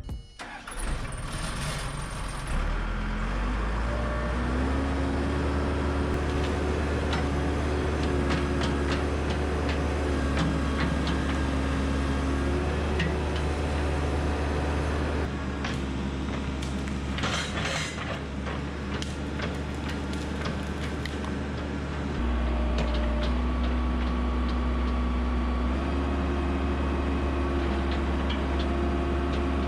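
Backhoe's diesel engine running steadily as it works dirt, its speed stepping up and down several times, with scattered clanks and a brief hiss about seventeen seconds in.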